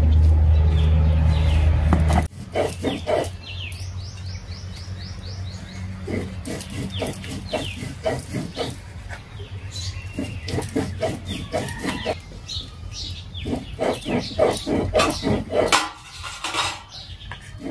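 A loud, steady low rumble cuts off about two seconds in. After it, birds chirp and hens cluck on and off.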